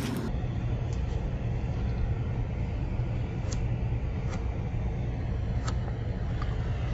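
Steady low machinery rumble and hum, with a few faint ticks.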